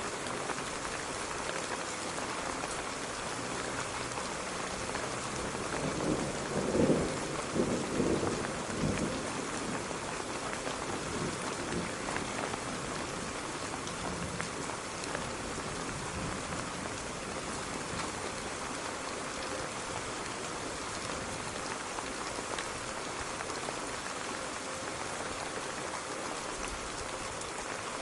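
Steady rain falling and pattering on surfaces, an even hiss throughout. A short rumble of thunder, with a couple of louder cracks, breaks in about a quarter of the way through and fades within a few seconds.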